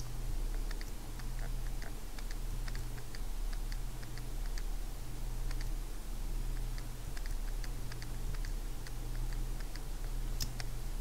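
Light, irregular clicking of computer keyboard keys over a steady low hum.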